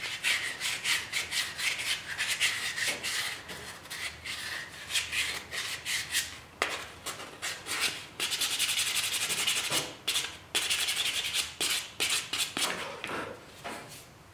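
Sandpaper rubbed by hand over the unfinished wooden handle of a boning knife: a run of quick back-and-forth rasping strokes, with a couple of short stretches of steady, continuous rubbing partway through.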